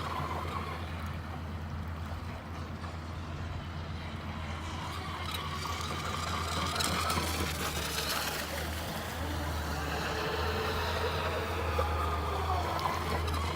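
Joysway US 1 v3 RC catamaran's brushless motor whining at speed, its pitch rising and falling over and over. A steady low rumble runs underneath.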